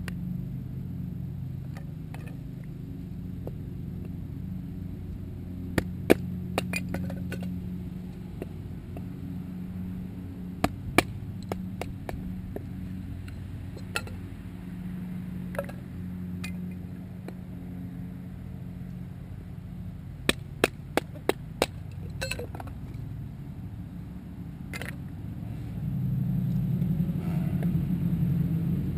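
Sharp knocks and clicks of a fixed-blade bushcraft knife working wood, scattered singly with a quick run of four about two-thirds through. A steady low rumble underneath grows louder near the end.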